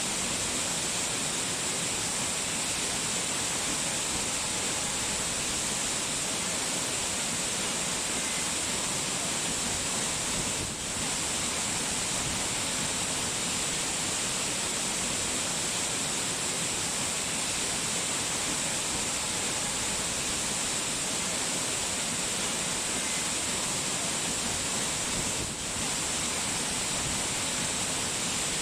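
Steady, even rush of falling water, with no rhythm or distinct drops, dipping briefly twice.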